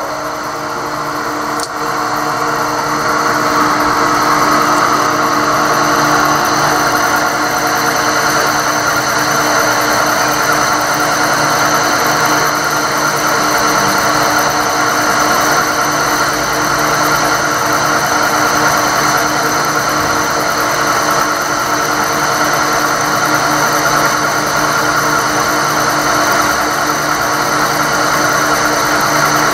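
Drill press running steadily as its bit bores a hole into a part clamped in the machine vise, the motor hum and cutting noise building over the first few seconds and then holding even.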